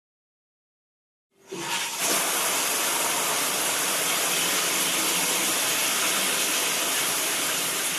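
Dead silence, then about a second and a half in a steady rushing hiss fades up quickly and holds level without a break.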